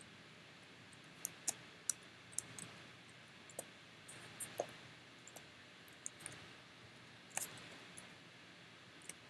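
Irregular clicks of a computer mouse, about fifteen of them, while vertices are selected and moved in a 3D modelling program.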